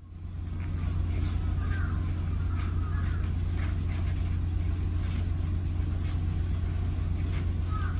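Steady low rumble and hum of construction-site machinery, fading in over the first second, with scattered faint knocks and a few short higher calls on top.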